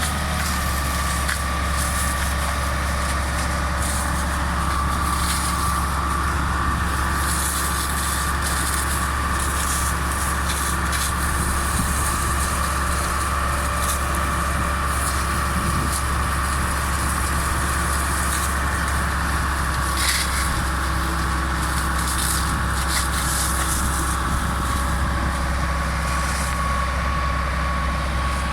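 A heavy vehicle's engine running steadily at a constant speed, with a deep, even rumble.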